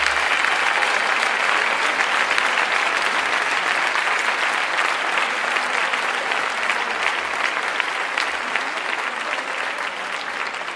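A large audience applauding, many hands clapping together in a dense steady patter that dies down a little near the end.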